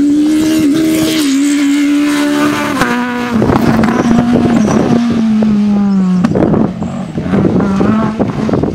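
Rally car engine held at high revs as the car passes at speed, the pitch sagging briefly about six seconds in and then picking up again. Sharp cracks rattle through the second half.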